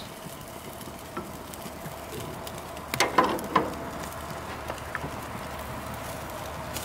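Steady hiss and sizzle of baby back ribs cooking on a gas grill, with a few light knocks about three seconds in as a basting brush is dipped into a bowl of barbecue sauce.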